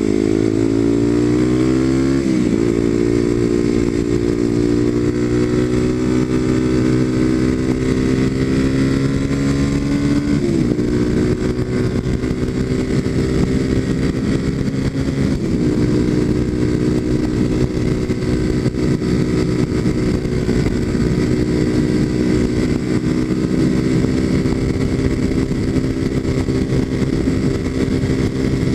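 Kawasaki KLX250SF's single-cylinder four-stroke engine through a Muzzy aftermarket exhaust, accelerating hard up through the gears. The note climbs for the first two seconds, breaks at gear changes about two and a half, ten and a half and fifteen and a half seconds in, then holds steady at speed.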